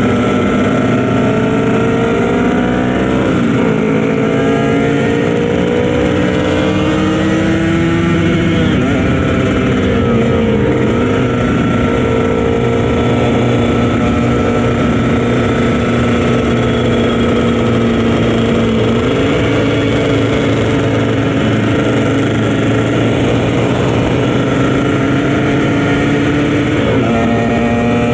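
Kawasaki Ninja RR 150 two-stroke motorcycle engine under way, its revs climbing and dropping several times as it runs through the gears, then holding a steady pitch for a long stretch before dipping again near the end.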